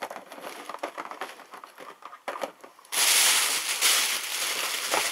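Thin plastic shopping bag crinkling as a hand rummages in it: light, scattered crackles at first, then loud continuous rustling from about three seconds in.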